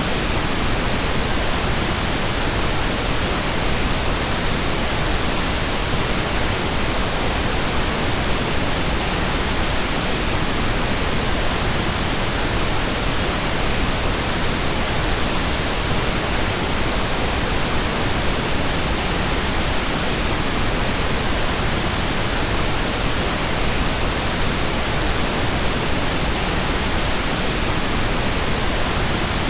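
Steady pink noise: an even, unbroken hiss spread across all pitches, unchanging throughout.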